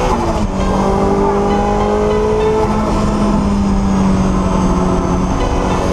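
Car engine running hard at speed, its pitch climbing slowly, with a drop about a third of a second in like a gear change.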